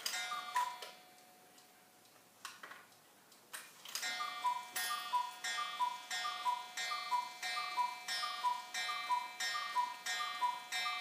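Mechanical cuckoo clock: ticking at first, then from about four seconds in the cuckoo's two-note call, a higher note then a lower one, repeats over and over to call the hour.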